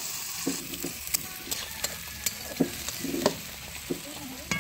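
Chopped onions sizzling as they fry in hot mustard oil in an aluminium kadai, browning toward reddish-brown, with a metal spatula scraping and knocking against the pan about six times as they are stirred.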